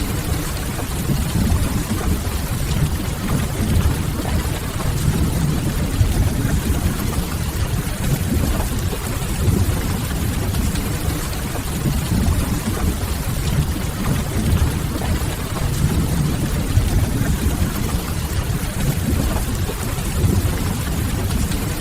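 Steady heavy rain: a dense, even rushing hiss with most of its weight in a deep low rumble and no breaks or distinct events.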